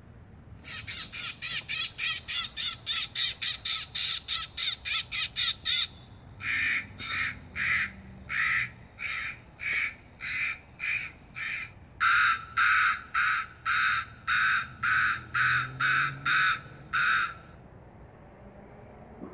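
Bird-deterrent loudspeaker playing recorded bird calls in three runs of evenly repeated calls: a fast run of about four calls a second, then a slower, different-pitched run of about two a second, then a run of about three a second. The calls stop about two seconds before the end.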